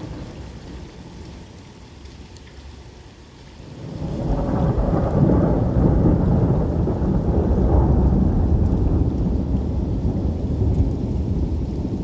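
Thunder from a nearby lightning strike: about four seconds in, a long, deep rumble builds and rolls on for several seconds over the hiss of rain.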